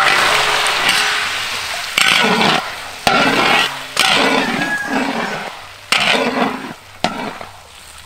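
Beaten eggs sizzling in hot oil in a large wok, with a metal spatula scraping the pan. The loud hiss fades off and comes back abruptly several times.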